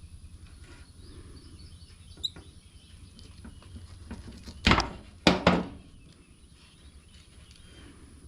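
Three sharp knocks close together a little past halfway, over a low steady hum, with a faint click a couple of seconds earlier.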